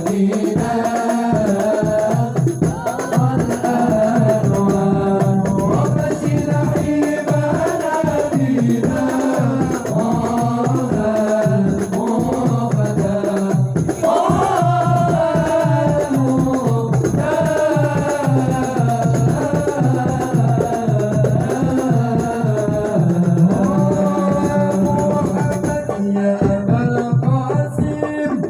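Sholawat, an Arabic Islamic devotional song, sung with long, melismatic held notes over steady hand-drum percussion.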